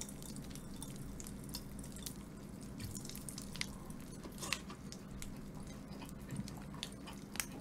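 Popping candy crackling in a mouth: faint, irregular little pops and clicks scattered throughout, the carbonated candy sprinkled on fried chicken bursting as it dissolves.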